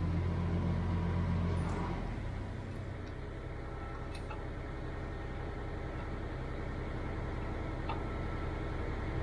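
Mini excavator's diesel engine running under load for the first two seconds as its bucket bears down on a shop press, then settling to a steady idle, with a few faint ticks.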